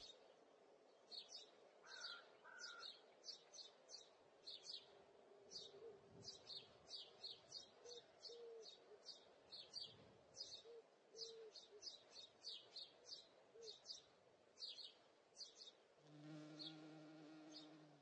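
A small bird chirping over and over: faint, short, high chirps about two a second. For the last couple of seconds a fly buzzes close by.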